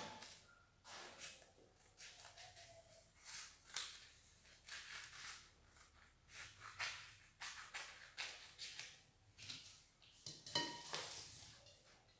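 Small craft scissors snipping through a sheet of glitter craft foam: a series of faint, irregular cuts with light handling of the sheet.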